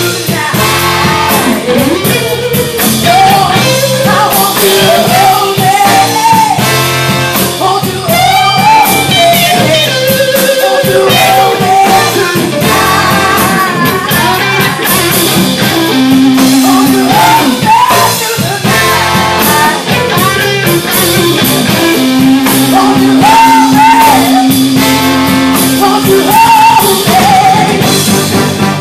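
Live soul and R&B band playing loudly: a woman sings lead over electric guitar, drum kit, keyboard and a horn section.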